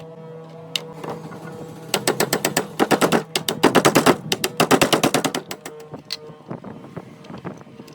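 A rapid run of sharp knocks or taps, about eight a second, lasting roughly three and a half seconds, then a few scattered knocks, over a steady low hum.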